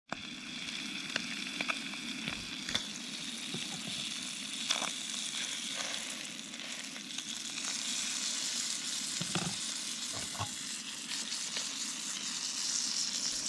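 Trout pieces sizzling in butter in a small pan over a canister camp stove, a steady frying hiss that gets louder near the end. A few sharp clicks of a spatula in the pan break through it.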